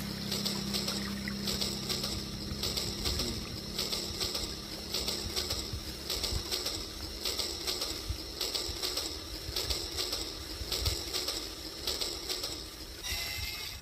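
Rail King toy train running along its track, with a rhythmic clatter that pulses roughly once a second, over the sound of a shallow stream.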